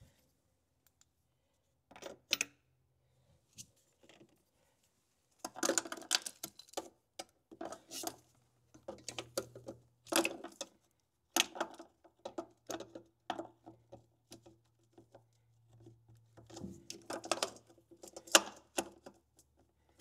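Hand ratchet driving a 12 mm swivel socket on extensions, loosening intake manifold bolts: several spells of rapid clicking a few seconds each, with the odd metallic clink of the tool.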